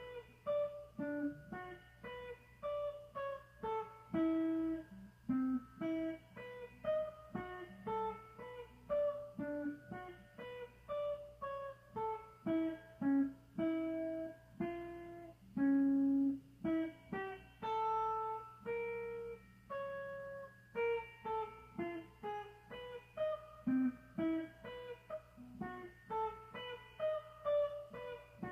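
Electric guitar playing an improvised single-note solo: plucked notes one after another, each ringing out and fading, two to four a second. A low steady hum runs underneath.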